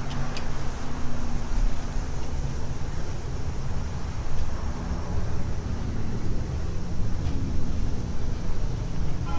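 An engine running steadily, its sound concentrated low, with a few sharp clicks right at the start.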